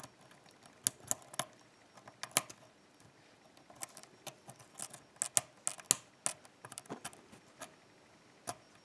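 Lock pick and tension wrench working the pin stacks of an ASSA five-pin oval cylinder: scattered small metallic clicks and ticks at an irregular pace, the sound of pins being probed and set while the core is held under light tension.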